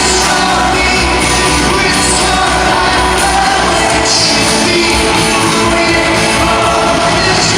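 Live rock band playing a song with a sung lead vocal over full band, drums and cymbals included, in a loud, steady mix.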